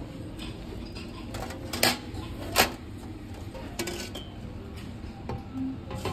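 Objects being handled: a few light knocks and clinks over a steady low background, the two sharpest about two seconds in and half a second later.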